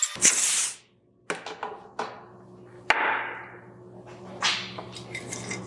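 A tire's beads being seated on its wheel: a spray hiss, a knock, then a sharp crack about three seconds in, followed by a rushing noise that fades over about a second, and another short rush near the end.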